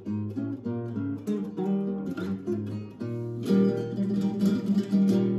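Background music: acoustic guitar strumming and picking.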